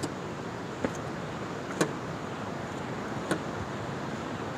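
Steady wind and surf noise with four short, sharp clicks at uneven intervals about a second apart.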